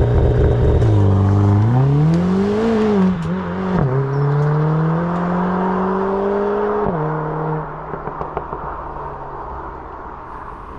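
Mercedes-AMG A45 S turbocharged 2.0-litre four-cylinder engine through a freshly modified exhaust, pulling hard: the note rises twice with a gear change between, drops sharply about seven seconds in, then runs steadily and grows quieter toward the end.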